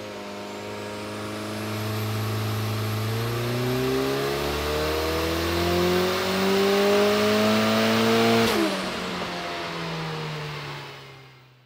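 Datsun 1600's turbocharged FJ20T four-cylinder engine doing a pull on a chassis dyno. The revs climb steadily for about eight seconds with a thin high whistle rising alongside, then the throttle is lifted and the engine winds down and fades out.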